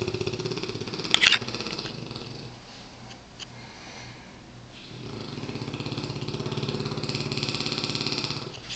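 A sleeping mastiff snoring: two long, fluttering snores, the first fading about three seconds in and the second starting about five seconds in and stopping near the end. A brief sharp click comes about a second in.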